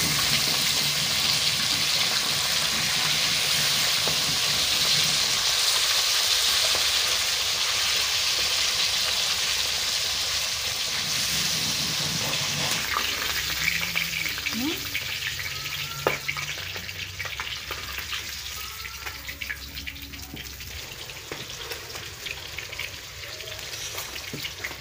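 Fish pieces frying in hot oil in an iron wok, a steady sizzle that is loudest in the first half and dies down after about halfway. Scattered clicks and scrapes come from a metal spatula turning the pieces.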